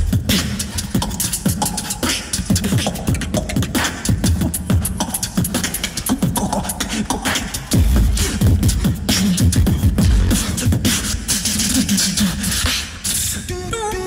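Beatboxers performing into microphones in a tag-team battle: a fast, dense rhythm of vocal kick drums, snares and deep bass hits. Near the end a pitched melody of stepping notes comes in.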